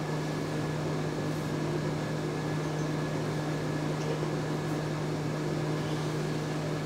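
Steady machine hum from a running motor or fan, one low droning tone with fainter higher tones above it. A few faint strokes of a marker on a whiteboard come through over it.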